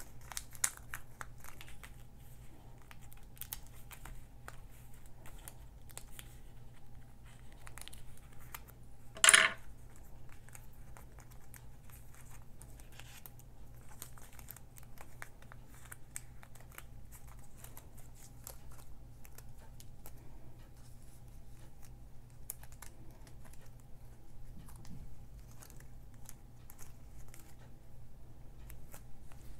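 Light crinkling, small ticks and soft tearing of thin paper as die-cut paper letters are weeded out and peeled from their backing, with one louder rustle about nine seconds in.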